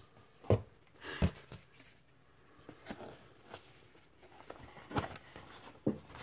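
A cardboard LP record jacket being handled and turned over by hand close to the microphone: several knocks, the two loudest about half a second and a second in, with softer rustling between them.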